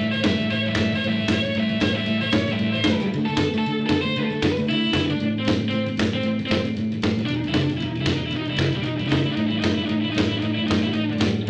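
Background music: guitar over a quick, steady beat.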